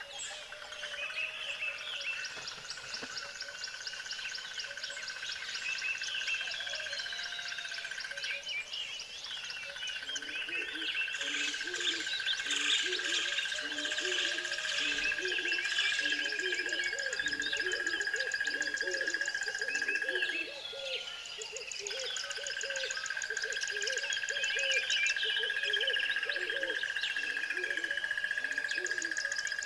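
Nature ambience: many birds chirping and trilling over a steady high whine, joined from about ten seconds in by a steady run of low calls repeating a little faster than once a second.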